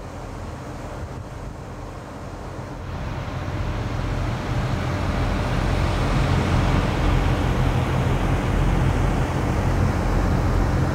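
Steady vehicle noise: a low engine rumble with a broad hiss, growing louder over the first few seconds and then holding steady.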